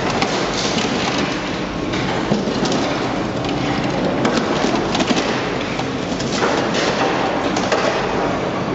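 Heavy machinery breaking up scrap car metal: a dense, continuous crackling and clattering of many small impacts.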